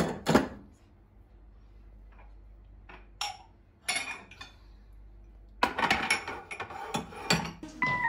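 Glassware clinking and knocking as glasses are handled and set down on a cabinet shelf: a couple of knocks at the start, scattered clinks a few seconds in, then a quick run of clinks near the end.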